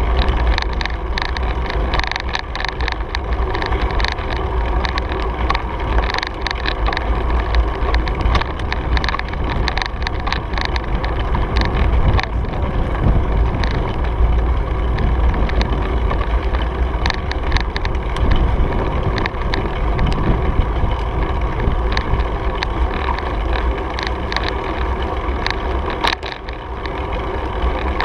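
Wind rumbling and buffeting on the microphone of a camera riding on a moving bicycle, with frequent small rattles and clicks as the bike rolls over the pavement. It briefly drops in loudness near the end.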